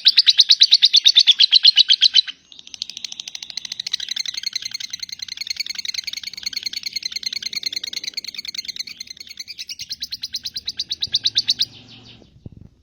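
Lovebird's long 'ngekek' song: a fast, high chattering trill of rapidly repeated notes. It breaks off briefly about two seconds in, runs on more softly, swells again and stops shortly before the end.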